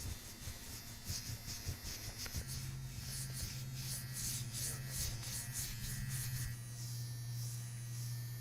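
A small electric motor humming steadily, starting about two seconds in, with a soft rhythmic swishing on top.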